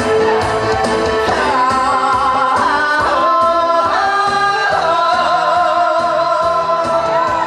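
A woman singing a melody into a microphone, with wavering held notes, over amplified accompaniment with a steady beat.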